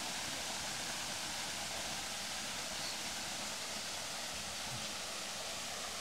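Steady rush of water at a waterfall, an even hiss with no breaks.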